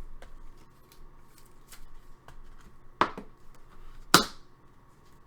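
Hockey trading cards being handled on a table: light rustling and ticking as cards are sorted, with two sharp snaps about three and four seconds in, the second the loudest.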